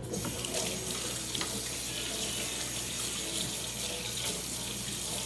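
Kitchen sink faucet turned on and running in a steady stream while hands are washed under it.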